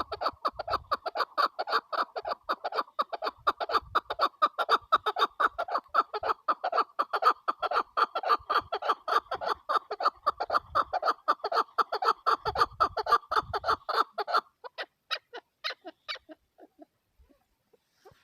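Female chukar partridge calling: a fast, even run of short, repeated notes, about five or six a second, that breaks off about fourteen seconds in and trails away in a few scattered notes.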